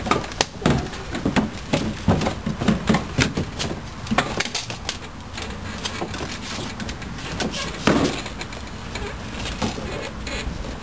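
Irregular plastic knocks and clicks from a toddler's plastic ride-on toy car as the child shifts about in it and handles the steering wheel, thickest in the first few seconds, with one sharper knock about eight seconds in.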